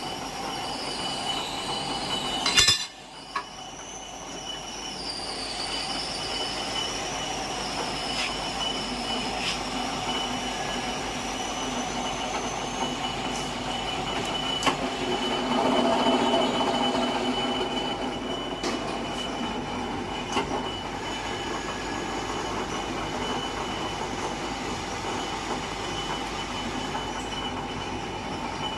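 Multi-spindle tapping machine running: a steady mechanical hum with a high, steady whine. A wavering squeal runs through the first dozen seconds, a sharp knock comes about three seconds in, and the sound swells louder for a few seconds around the middle.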